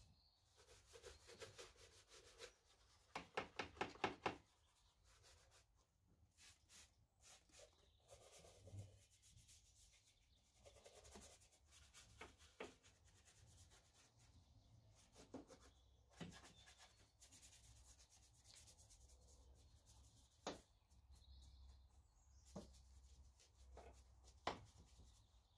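Faint brush scrubbing: a detailing brush working all-purpose cleaner over engine-bay plastics and metal, with a quick run of rapid back-and-forth strokes about three seconds in, then scattered light scrapes and knocks.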